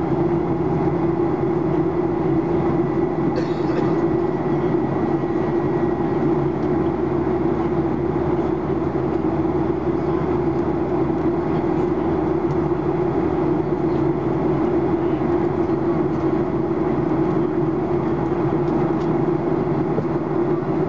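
Steady cabin drone inside a Boeing 737-800 in flight, from its CFM56-7B turbofan engines and the air rushing past the fuselage, with a steady low hum running through it. A brief click is heard about three seconds in.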